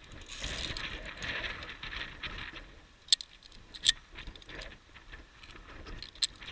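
Via ferrata lanyard carabiners on the steel safety cable: a scraping, rustling slide, then three sharp metallic clicks as they are handled and moved past a cable anchor.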